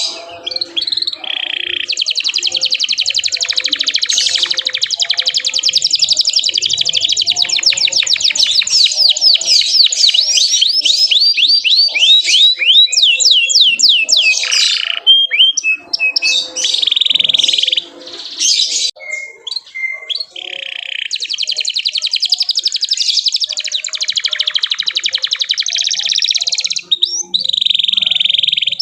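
Domestic canary singing loudly. Two long, very fast rolling trills are broken up by quick chirps and short bursts of song.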